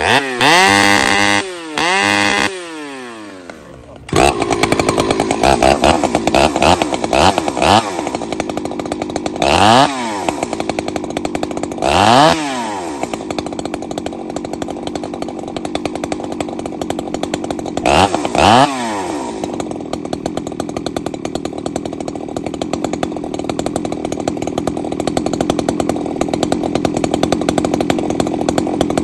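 Husqvarna 266XP two-stroke chainsaw fitted with a custom-built exhaust pipe, revved hard twice and dropped back. It then jumps to high revs about four seconds in, with the engine speed swinging up and down several times before holding a steady high-speed run for the last ten seconds or so.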